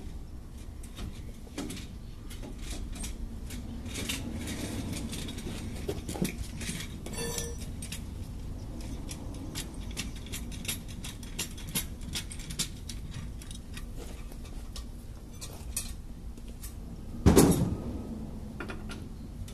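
Scattered metallic clinks and clicks from tools and spare-tire hardware being handled under a Chevrolet S10 pickup, with one loud knock near the end.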